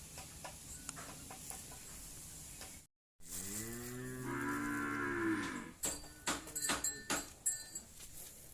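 Cow mooing once: a single long call of about two and a half seconds that rises and then falls in pitch. It is followed by a run of sharp clicks and knocks.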